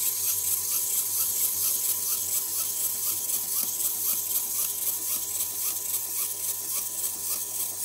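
Rhythmic rasping scrape against paper, about three strokes a second, over a steady faint hum.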